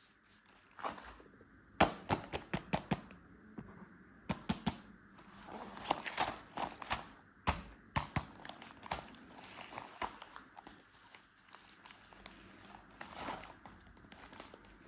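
Sweet packaging and candies being handled: irregular sharp clicks and taps with light crinkling, including a quick run of clicks about two seconds in.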